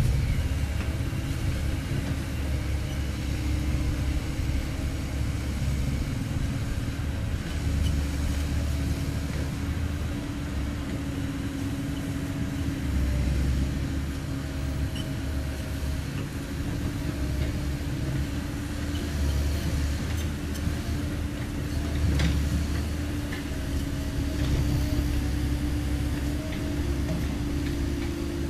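Komatsu PC130F-7 crawler excavator's diesel engine running under working load, with a steady hum from the hydraulics. The level swells and eases a little as the machine moves.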